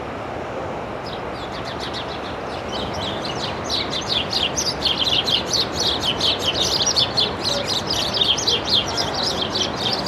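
House sparrows squabbling: a dense run of rapid, overlapping chirps that starts about a second in and keeps going, over a steady background rush.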